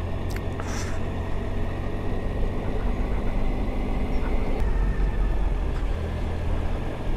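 Triumph Tiger Sport's three-cylinder engine running at low, steady revs on the move, with tyre and wind noise over a rough lane surface; the engine note shifts slightly about four and a half seconds in.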